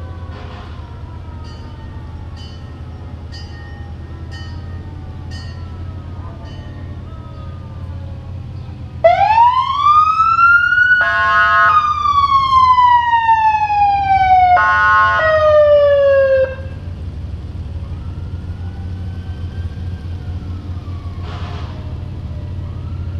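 Emergency vehicle siren sounding one close, loud wail that rises sharply, then falls slowly and cuts off, with two short horn blasts over it. Fainter siren chirps come before it, over the low rumble of parade vehicle engines.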